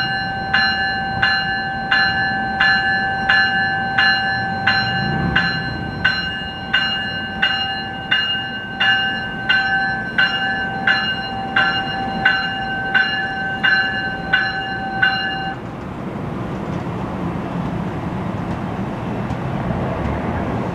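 NJ Transit commuter train's warning bell ringing as the train pulls out of the station, evenly at a little under two strokes a second over a steady high hum. Bell and hum stop together about fifteen seconds in, leaving the low rumble of the train rolling away on the tracks.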